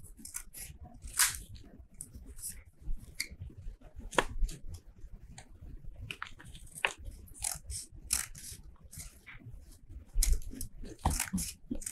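Paper and card rustling and crackling in irregular short bursts, with small scissors snipping card and a needle and thread being pulled through paper sheets.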